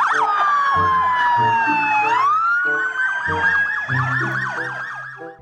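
Electronic police-car siren: a fast warbling yelp layered with a slower wail that falls in pitch and then rises again about two seconds in. It fades toward the end, with background music underneath.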